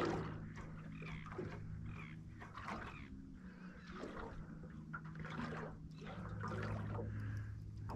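Water lapping and trickling softly against a small aluminium boat's hull, over a faint steady low hum.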